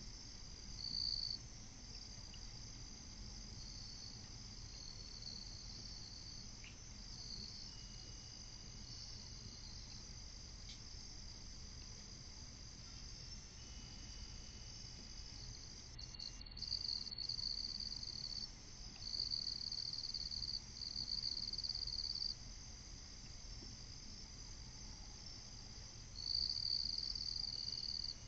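Night insects trilling: a faint, steady high-pitched chirring that swells louder in stretches of a few seconds, several times, over a low steady hum.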